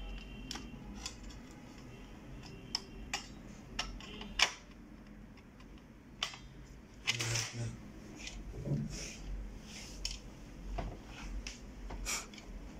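Small clicks and taps of a metal pick against a spring and the plastic frame inside a scanner's document feeder as the spring is hooked into place, with a sharper click about four seconds in. A short rustle of handling follows later.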